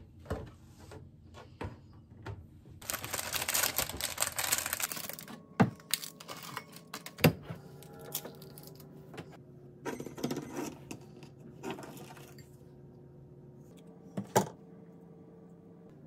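Kitchen salad-making sounds: a rustling hiss for about two seconds a few seconds in, then sharp clicks and knocks of bowls and utensils set on the counter, three of them loud, over a faint steady hum.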